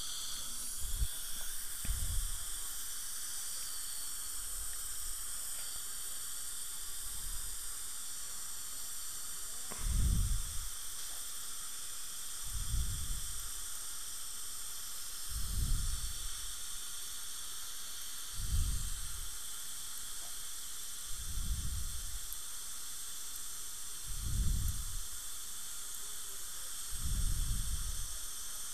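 Steady hiss from dental equipment, with a faint high whine. A soft low puff comes in about every three seconds.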